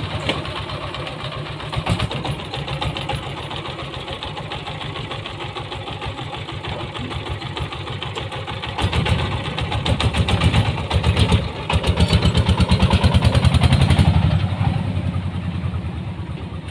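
The 24 hp diesel engine of a homemade dump truck runs with a rapid, even chugging beat. About halfway through it revs up louder for several seconds as the truck pulls away, then the sound fades.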